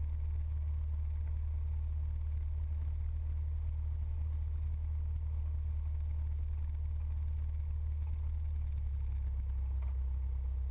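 Cessna 172's piston engine idling steadily on the ground, a constant low drone.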